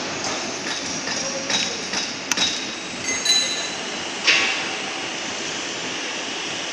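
A handful of sharp metallic knocks and clinks, the loudest about four seconds in, over steady workshop noise.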